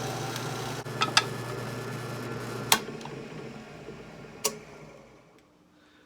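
Drill press motor running with a steady hum, then winding down after it is switched off, fading out about five seconds in. Four sharp metallic clicks or taps come through it, two close together about a second in, one near three seconds and one near four and a half.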